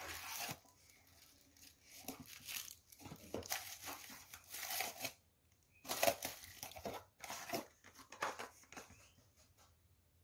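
Crumpled paper packing crinkling and rustling in irregular bursts as it is handled and pulled out of a cardboard box. The loudest burst comes about six seconds in.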